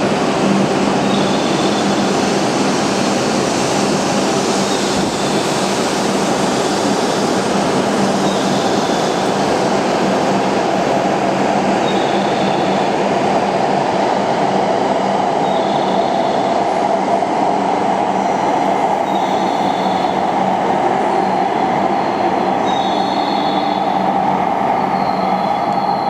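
E7/W7-series Hokuriku Shinkansen train running along the station platform: a loud, steady rush of wheel, rail and air noise, with brief high squeals from the wheels every few seconds.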